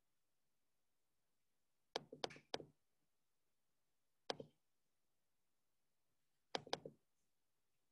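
Sharp clicks from a computer being worked, in three short groups: a quick run of about four about two seconds in, a single click midway, and a run of three near the end, with near silence between.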